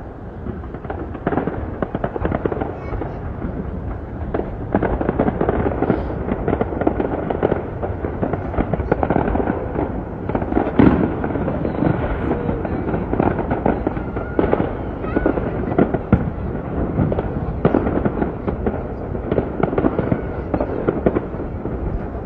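Fireworks display: a continuous run of shell bursts, booms and crackling, with the sharpest bang about eleven seconds in.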